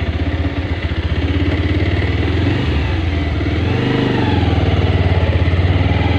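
Motorcycle engine running, heard from the rider's seat, with a fast, even pulsing beat; its pitch dips and swells briefly about four seconds in as the revs change.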